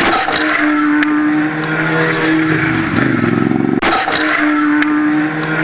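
Motorcycle engine running, its pitch holding steady and then dropping and climbing as the revs change. The same stretch of engine sound repeats about every four seconds.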